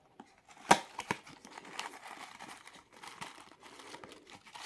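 A small cardboard compartment of an advent calendar being opened: a sharp snap about three quarters of a second in and a couple more clicks, then steady crinkling and rustling of the paper packing around the gift as it is pulled out.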